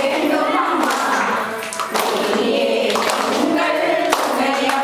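A group of women singing a Tamil kummi folk song together, with sharp hand claps keeping time to the dance.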